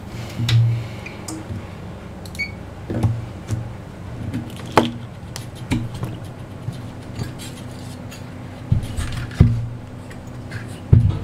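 Steady low electrical hum with a slightly higher hum tone joining a little over halfway, under scattered light clicks and knocks of tools and parts being handled on a repair bench.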